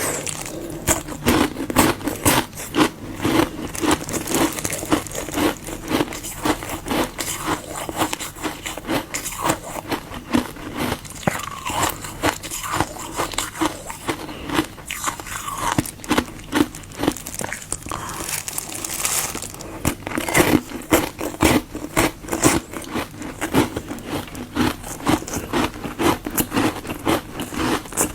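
Close-miked crunching of frozen Fanta-and-water ice being bitten and chewed: a dense, continuous run of sharp cracks and crunches, several a second, with no pauses.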